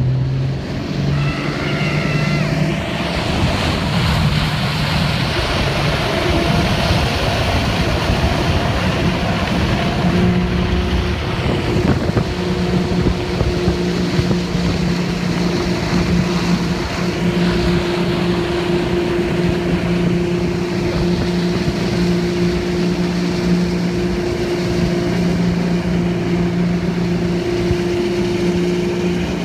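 Towing motorboat's engine pulling hard as the barefoot skier gets up, settling into a steady run from about ten seconds in, over the rushing hiss of spray off the skier's feet and wind on the microphone.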